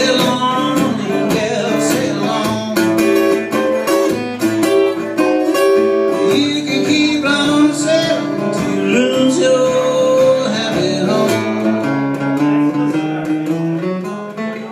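Acoustic guitar playing a country blues, with steady picked strokes under a run of held and bent melody notes; the playing drops away near the end.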